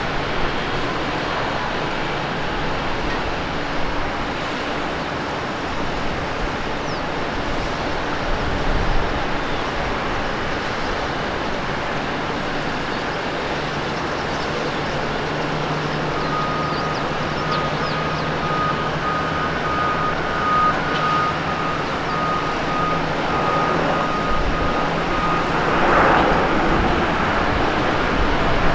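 Jet airliners' engines running on the runway, a steady roar of airport noise. A repeating electronic beep joins it a little past halfway and stops a few seconds before the end.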